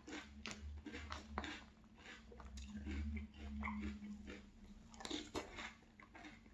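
Close-up chewing of crunchy Boo Berry blueberry cereal with marshmallows: a steady run of crunches, two or three a second.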